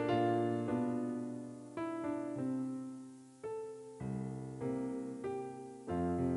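Background piano music: slow chords and notes struck about once a second and left to fade.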